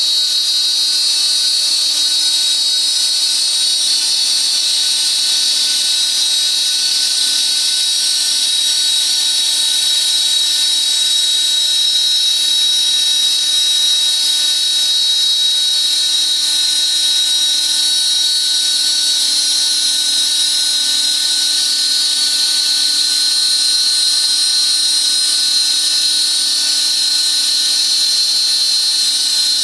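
Spindle of a ZXX CNC 1325B glass slotting and milling machine running with a steady, high-pitched whine.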